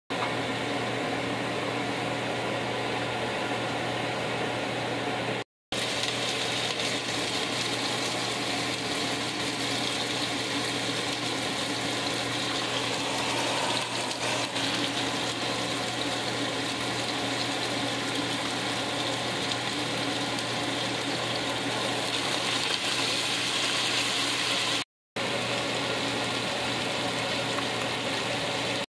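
Steady hum of a kitchen fan together with the hiss of goat meat frying in hot oil in a pot. The hiss grows stronger after the sound cuts out briefly about five seconds in, and there is a second brief cut-out near the end.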